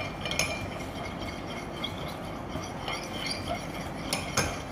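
A teaspoon stirring matcha in a small ceramic cup, with light clinks of the spoon against the cup, the sharpest near the end.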